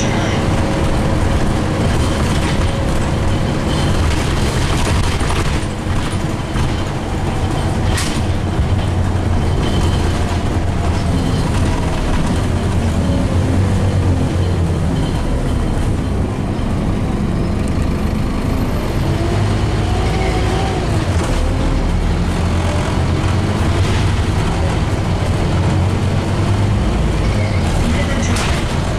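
Cabin sound of a Scania OmniCity N230UD double-deck bus on the move: its rear-mounted nine-litre five-cylinder diesel running under load over steady road and tyre noise, the engine note rising and falling as the bus accelerates and changes gear.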